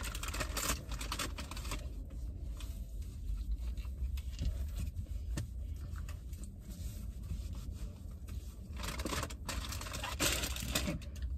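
Paper napkin rustling and crinkling as soy sauce is wiped off a steering wheel, with scattered small clicks and scrapes. The rustling comes in louder bursts near the start and again about nine to eleven seconds in, over a low steady hum.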